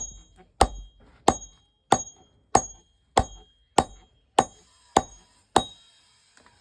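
Blacksmith's hammer striking metal on an anvil while forging a digging tool: ten even blows, a little over one and a half a second, each with a short metallic ring. The blows stop about a second before the end.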